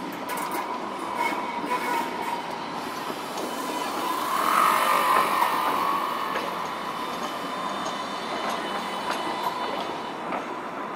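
Alstom Citadis X05 electric light-rail tram moving past at close range: a steady whine over rolling wheel-on-rail noise, loudest about four to six seconds in.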